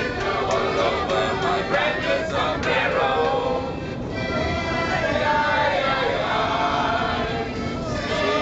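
A group of people singing together in chorus, with a guitar playing along.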